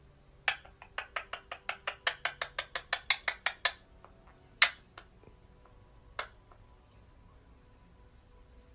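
Indian ringneck parakeet giving a fast run of short, sharp chattering calls, about six a second for nearly three seconds. Two single calls follow, about a second and a half apart.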